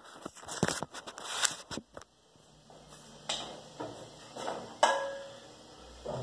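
Kitchen handling noises: a quick run of knocks and clicks as the phone is handled, then a few separate knocks and clinks of a frying pan and utensil on a gas stove, one clink ringing briefly about five seconds in.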